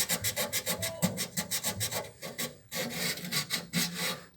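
Rapid back-and-forth abrasive rubbing strokes on a refrigerator evaporator being reconditioned, about seven strokes a second. A little past two seconds the strokes pause briefly, then go on as a steadier rubbing.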